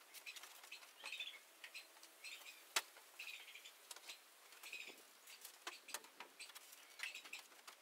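Faint, scattered clicks and light taps of metal turbine parts being handled on a trailer, with one sharper click about three seconds in. Short bursts of high twittering come and go.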